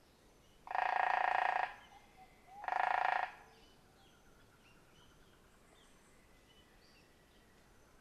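Smoky-brown Woodpecker making two fast rattling bursts, the first about a second long and the second a little shorter, over faint forest bird chirps.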